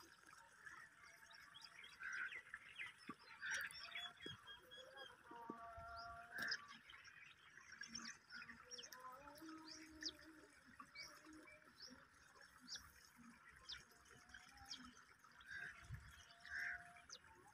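Faint chirps and calls of birds: short scattered notes, with a few brief lower calls near the middle.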